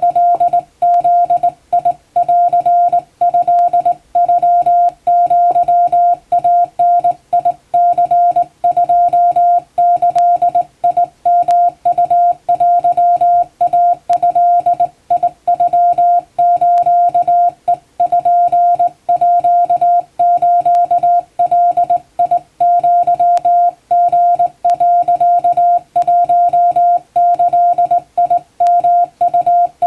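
Hand-keyed Japanese (wabun) Morse code: a single steady beep keyed on and off in dots and dashes, with short pauses between characters.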